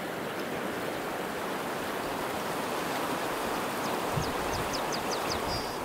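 Rushing water of a shallow, riffled trout stream running over rocks, a steady even wash. Near the end a quick run of short high chirps and a brief held high note sound over it.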